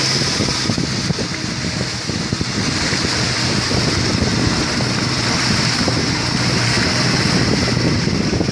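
Suzuki outboard motor running steadily at cruising speed on a small motorboat, mixed with the rush of churning wake water and wind buffeting the microphone.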